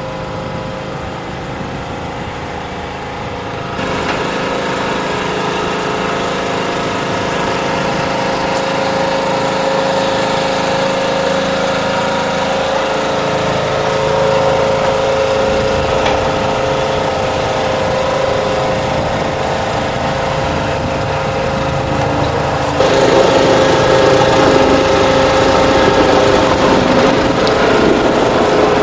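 A small engine running steadily with a constant hum. It gets louder about four seconds in and again suddenly about three quarters of the way through.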